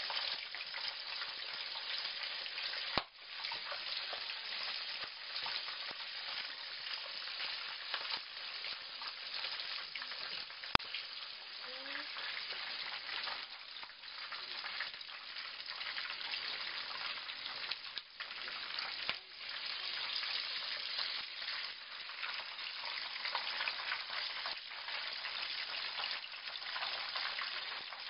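Chicken pieces deep-frying in hot oil in a frying pan: a steady, dense sizzle, with a couple of sharp clicks.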